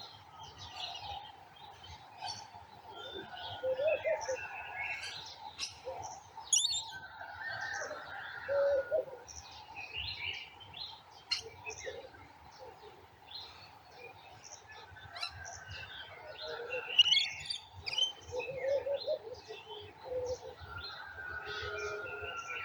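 Several garden birds chirping and singing at once, overlapping short high calls and trills, with lower cooing calls, as of a dove, now and then.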